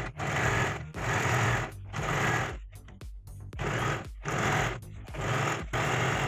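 Usha Janome Dream Stitch electric sewing machine stitching a buckram-backed strip onto a lehenga hem, running in short bursts of under a second with brief stops, about one a second.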